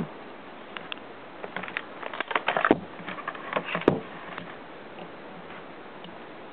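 Handling noise: a run of rustles and light clicks, with two sharper knocks a little under three and four seconds in.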